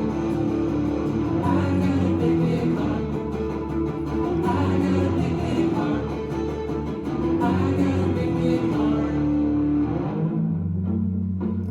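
Live band playing an instrumental passage, with electric guitar over bass guitar. About ten seconds in the fuller sound thins out, leaving mainly bass and struck guitar chords.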